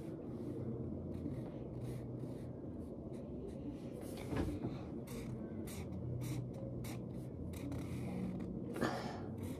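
Marker scratching across grid-notebook paper in quick, repeated short strokes as squares are coloured in, with a low steady hum underneath. Two longer, louder rubs come about four and a half seconds in and near the end.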